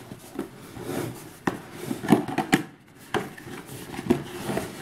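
Cardboard game box being handled and its lid worked open: cardboard rubbing and sliding, with several sharp knocks and taps against it.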